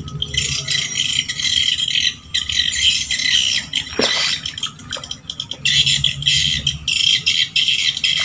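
Swiftlets chirping: a dense, rapid, rattling twitter in bursts with short breaks, and one brief falling note about four seconds in.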